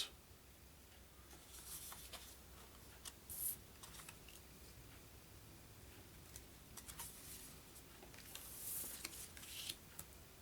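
Faint rustling and light clicks of thin cardboard game cards being handled and flipped through by hand, in a few short bursts with the longest near the end.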